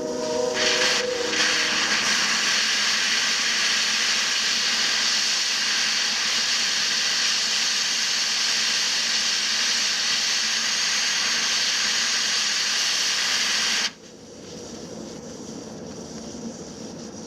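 Compressed air hissing out of a car tire as it is deflated, with a brief whistling tone at the start. The loud hiss holds steady, cuts off suddenly about 14 seconds in, and a fainter hiss follows.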